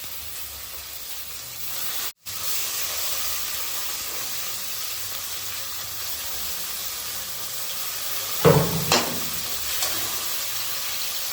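Grated chicken and fried onion sizzling in hot oil in a kadai, a steady hiss. It breaks off for an instant about two seconds in and comes back a little louder. Near the end there are two sharp knocks of a utensil against the pan.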